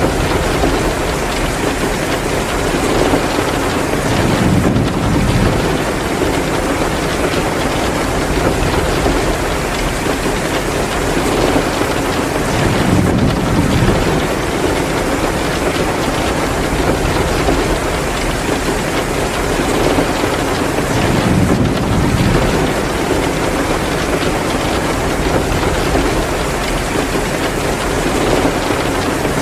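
Heavy, steady rain with a crackling fireplace mixed in. A low swell rises and fades about every eight to nine seconds.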